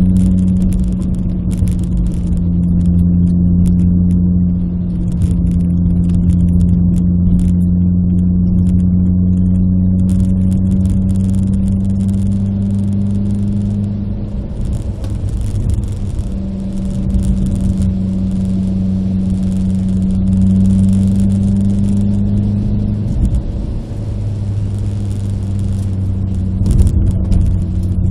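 Renault Clio RS 172's 2.0-litre four-cylinder engine heard from inside the cabin while driving, its note climbing slowly under load. It drops about halfway, climbs again, and dips briefly near the end.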